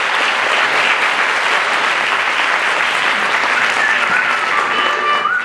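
Audience applauding steadily, with a few thin, high, held tones sounding through it in the last second and a half.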